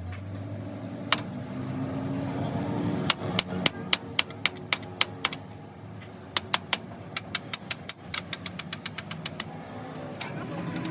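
A low, steady machine hum, with a run of sharp knocks, several a second, starting about three seconds in and stopping near the end.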